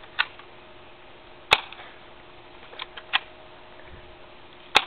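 Airsoft gun firing: sharp single snaps, the two loudest about a second and a half in and just before the end, with a few fainter clicks in between.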